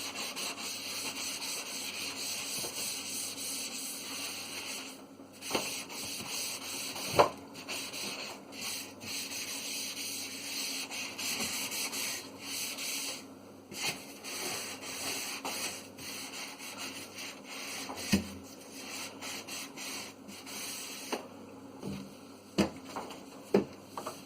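Cloth wiping and scrubbing the inside of a fridge: a steady rubbing hiss with short pauses, stopping near the end, and a few sharp knocks of things being bumped or moved.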